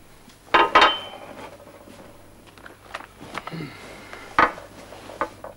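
A cup set down on a glass-topped coffee table with a loud, ringing clink. It is followed by a few soft knocks and rustles, and a sharp knock about four seconds in, as a person settles onto a sofa and puts their feet up on the table.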